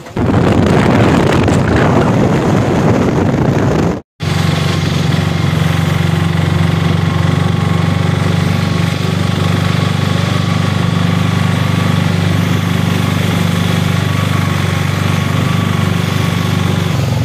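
A vehicle engine running steadily at one even pitch. Before it, after a cut, there are about four seconds of loud rushing noise.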